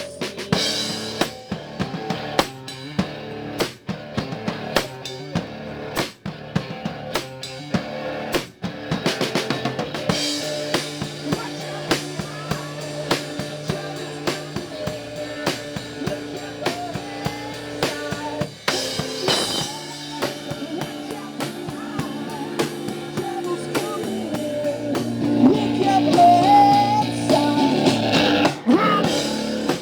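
Live rock band playing an instrumental break: a drum kit with kick and snare keeps the beat under electric guitar, which grows louder with a bending note in the last few seconds.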